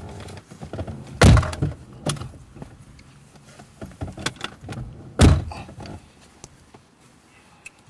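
Two car doors of a BMW sedan slammed shut, about four seconds apart, with small knocks and rustling in between.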